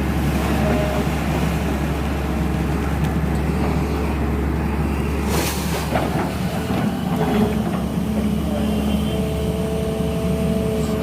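Sany 220 excavator's diesel engine running steadily under working load, with a short sharp knock about five and a half seconds in.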